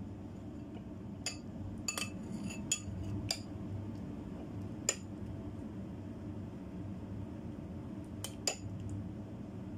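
Metal spoon clinking against a ceramic soup bowl: a scattering of light, ringing clinks, several in the first few seconds and a pair near the end, over a steady low hum.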